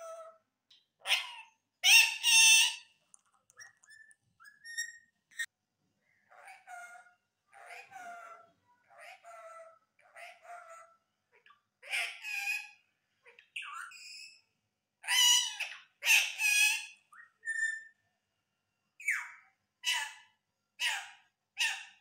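Rose-ringed (Indian ringneck) parakeet talking in a string of short mimicked phrases: a name ('Saima'), 'Mithu beta', and a copied cat's 'miaon miaon'. Near the end come short calls about one a second.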